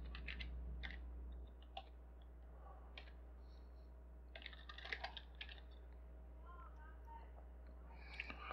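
Faint computer keyboard typing: scattered single keystrokes, with a short flurry of keys about five seconds in.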